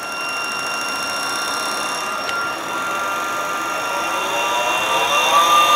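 PWM-driven DC motor whining steadily at its switching frequency of about 1.4 kHz, with higher overtones of the same note. A little past four seconds a second set of lower tones rises and then levels off as the motor speeds up.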